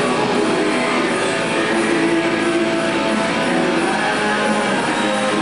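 Background music: guitar-driven rock with a steady level.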